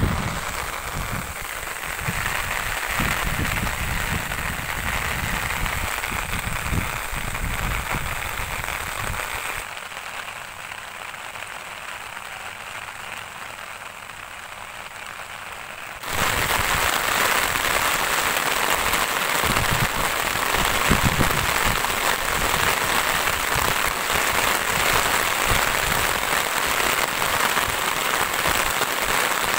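Steady rain falling on open fields and leafy plants, an even hiss. It is softer through the middle and turns suddenly louder about halfway through, with low rumbling on the microphone in the first part.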